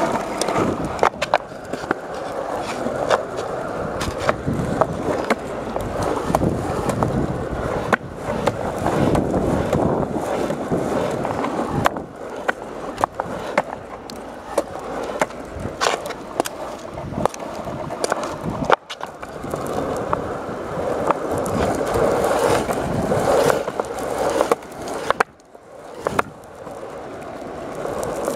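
Skateboard wheels rolling on a concrete sidewalk: a continuous rolling rumble with frequent sharp clicks as the wheels cross cracks and joints in the pavement. It goes briefly quieter about 25 seconds in.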